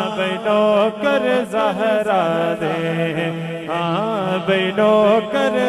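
Men's voices singing a Punjabi devotional manqabat in a chanting style, the melody rising and falling in long held phrases over a steady held tone underneath.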